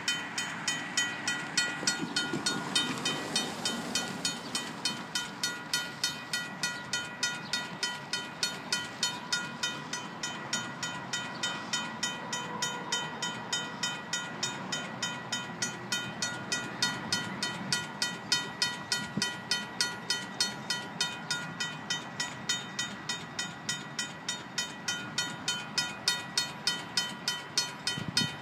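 RACO mechanical railroad-crossing bell ringing continuously, about three to four even strikes a second, with no train in sight: the crossing is malfunctioning.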